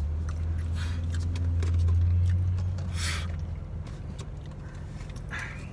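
Low rumble of a vehicle engine, swelling to its loudest about two seconds in and fading out by about four seconds, over a steady low hum, heard from inside a car. A brief high hiss comes about three seconds in.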